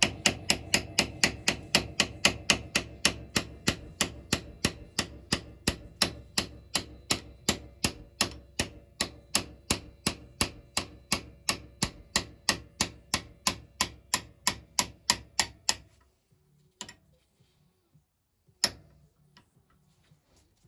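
Light, rapid hammer taps on a metal punch, about three a second and very regular, driving a part out of a Lister fuel and oil pump's brass body. The tapping stops about sixteen seconds in, followed by a couple of single taps.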